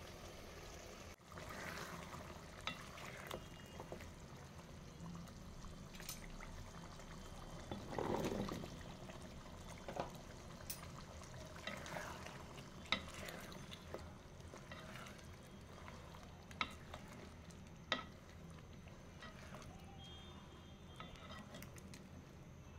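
Beef and potato curry being stirred in a pot: faint wet, sloshing liquid sounds, with a few sharp clicks of a spoon against the pot.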